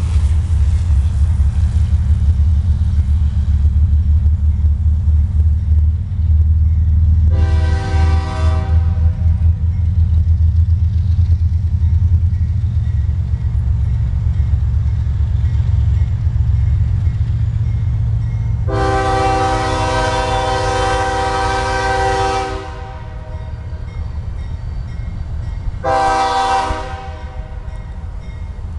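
Canadian Pacific diesel freight locomotive's air horn sounding a chord of several tones for a grade crossing as the train approaches. There is a blast of about two seconds, then a long one of about four seconds, then a brief one near the end, over a steady low rumble.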